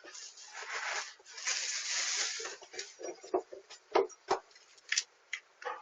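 Rustling and scraping for about two seconds, then a run of irregular sharp knocks and clicks, heard through a doorbell camera's thin, tinny microphone.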